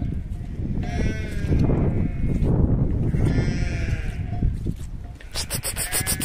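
Sheep bleating, with wavering calls about one second and three and a half seconds in, over a loud, even low noise. A quick run of clicks near the end.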